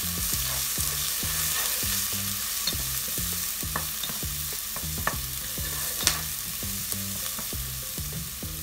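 Chopped onion and garlic paste sizzling in hot lard in a pot, stirred with a wooden spoon, the spoon scraping and knocking against the pot a few times, most sharply about six seconds in.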